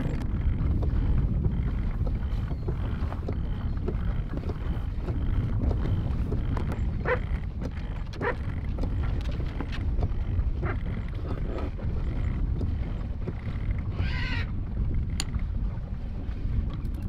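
Wind rumbling on the microphone on a sailboat's deck, with scattered clicks and knocks from the rigging. Near the end there is a short burst of clicking as a mast winch is cranked.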